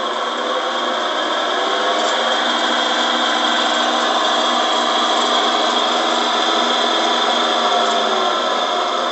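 Drill press running steadily on its АОЛ 22-4 three-phase motor, fed from a single-phase-to-three-phase frequency converter: a steady machine hum with several tones. It grows a little louder over the first few seconds, then holds.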